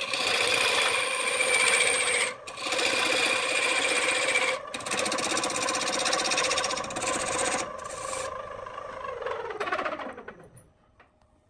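A hand-held turning tool cuts a spinning wooden vase blank on a wood lathe: a loud, steady rasping scrape with the motor's hum underneath, broken by two short pauses. About eight seconds in, the cutting stops, and the lathe then winds down with its hum falling in pitch.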